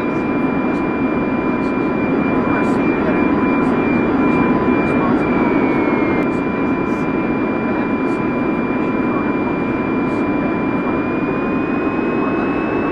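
DJI FPV drone's motors and propellers running, a steady whine over a dense rushing noise; the whine dips briefly midway and rises in pitch near the end.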